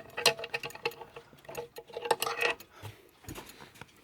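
Mechanical bracket clock ticking amid irregular clicks and light knocks, with a faint ringing tone in places.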